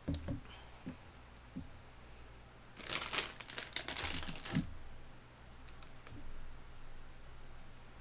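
Plastic instant-noodle packet crinkling as it is picked up and handled, a dense crackle of under two seconds about three seconds in. A few light knocks on the table come just before, at the start.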